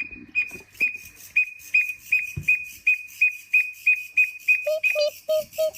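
Southeast Asian bush cricket singing: a clear, whistle-like chirp repeated about three times a second. Near the end a second, lower note sounds four times.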